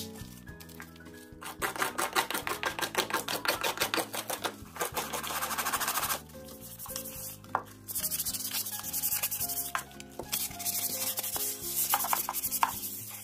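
Sandpaper rubbed back and forth over a dried bottle gourd shell in runs of quick rasping strokes. The strokes pause briefly about six seconds in, then resume, with soft background music underneath.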